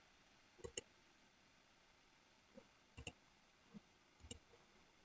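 Faint clicks of a computer mouse against near silence: two quick double clicks, about a second in and about three seconds in, then a few single clicks.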